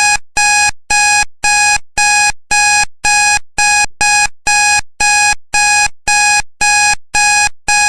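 Countdown timer alarm beeping: a loud electronic tone repeated about twice a second, each beep fading before the next, signalling that the countdown has reached zero.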